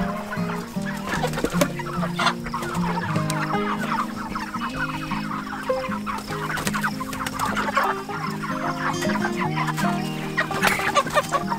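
A flock of meat chickens clucking and calling continuously, with background music of held, changing notes underneath.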